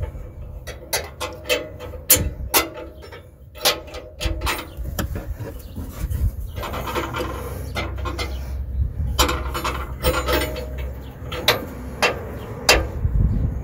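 Irregular sharp metal clicks and clinks from a wrench on a just-loosened oxygen sensor as it is unscrewed from the exhaust pipe, over a low rumble.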